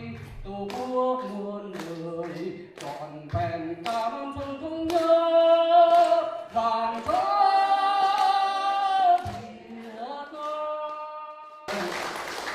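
Unaccompanied singing: a voice moving from note to note and holding two long notes in the middle, with a short burst of noise near the end.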